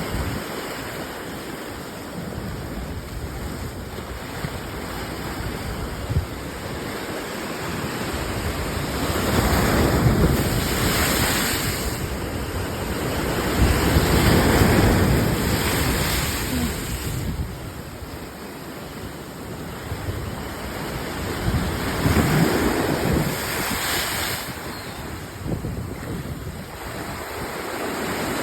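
Big ocean waves surging and breaking, the wash swelling loud three times and easing back between, with wind buffeting the microphone.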